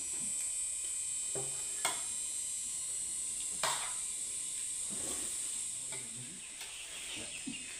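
Spoons clinking and scraping on metal plates as two people eat rice, with two sharp clinks about two and four seconds in. A steady high hiss runs underneath.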